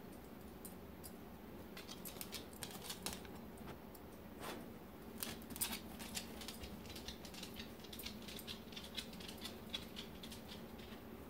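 Irregular light clicks and ticks over a steady low hum, with one brief falling whine-like sound about four and a half seconds in.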